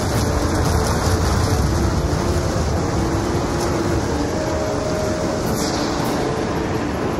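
Steady loud roar of a large wedge tornado, a dense rushing sound with a deep rumble underneath and a few faint tones drifting in and out.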